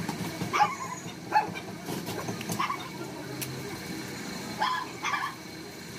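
A dog barking about five times in short calls, the first two the loudest, over steady low background noise.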